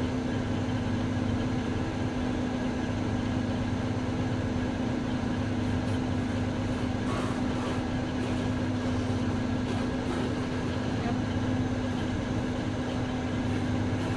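An engine running steadily with one constant low hum, heard from inside a vehicle's cab.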